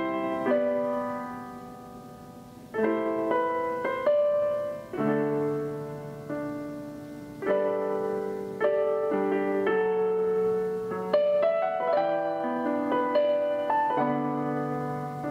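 Background solo piano music: chords struck every second or two and left to ring and fade.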